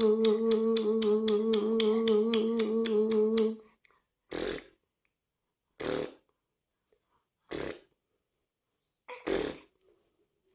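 A person's voice held at one steady pitch and broken into rapid pulses, about seven a second, for about three and a half seconds. It stops, and four short breathy puffs follow at even spacing of about a second and a half.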